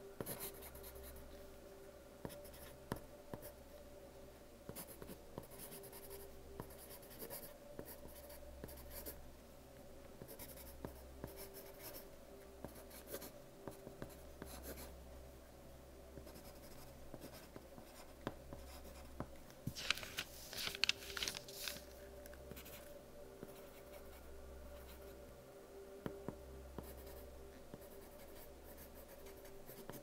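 Soft-lead pencil writing on paper: irregular light scratches and taps of the strokes, with a louder, quicker flurry of scratching about twenty seconds in.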